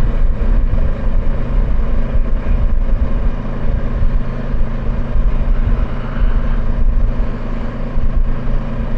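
Kawasaki Versys 650 parallel-twin engine running steadily while riding, with wind rumble on the microphone.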